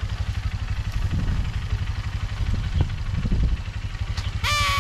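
Honda CRF150L's single-cylinder four-stroke engine idling with a steady low, rapid pulse while the bike is swung round in place at walking pace.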